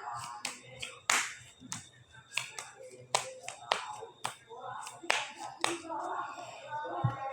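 A series of about a dozen sharp, irregular clicks and snaps from small Uno Mini playing cards being handled and flicked, the loudest about a second in.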